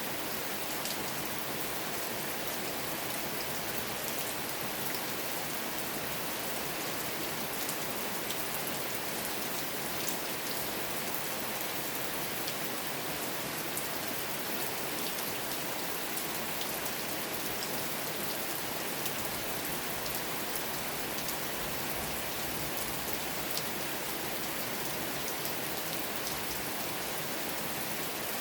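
Steady rain falling, a constant hiss with many small drops pattering on a surface.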